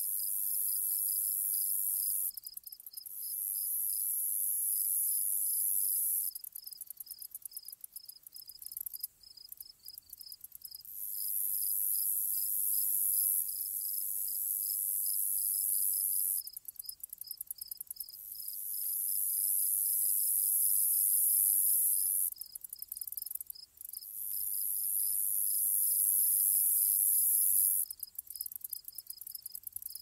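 Grasshoppers stridulating: long, very high-pitched buzzing trills lasting several seconds each, broken by stretches of rapid ticking, over a steady fast pulsing chirp a little lower in pitch.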